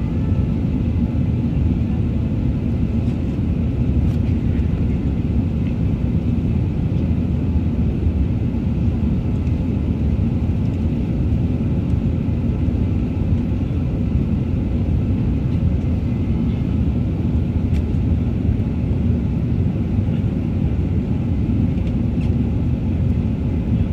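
Steady cabin noise inside an Airbus A380 climbing after takeoff: a constant low rumble of the engines and rushing airflow, heard at a window seat over the wing.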